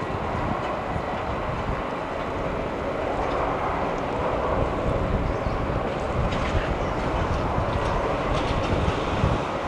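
Steady rumble of jet engines across the airfield, mixed with wind on the microphone, with a few faint ticks in the second half.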